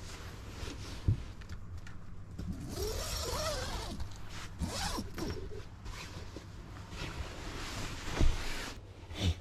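A zipper being pulled in two long strokes, with a few light knocks between and after.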